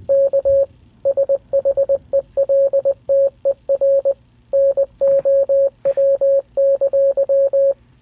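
Computer-generated Morse code tone: a single steady mid-pitched beep keyed in short dots and longer dashes, grouped into letters and words spelling out "Seek shelter now!". It stops shortly before the end.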